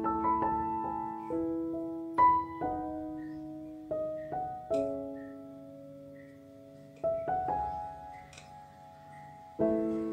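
Slow background piano music: single notes and chords struck every second or two and left to ring out and fade.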